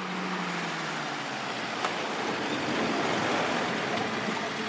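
UAZ off-road jeep driving up a snowy road and pulling up: engine running and tyres rushing over the snow, getting a little louder as it comes close.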